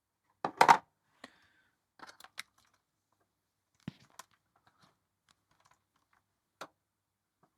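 Scattered small clicks and knocks of hard objects being handled and set down, the loudest pair about half a second in and a few fainter taps spread after it.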